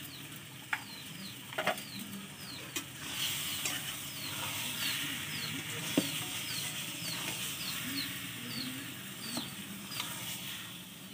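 Taro leaves and hilsa fish heads sizzling in a metal kadai as the water cooks off, stirred and scraped with a metal spatula, with a few sharp knocks of the spatula against the pan. Behind it, a bird gives short high falling chirps about twice a second.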